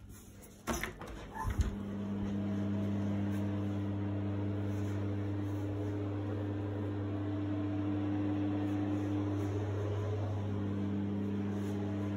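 A few clicks and knocks, then a bathroom extractor fan starts about a second and a half in and runs with a steady hum.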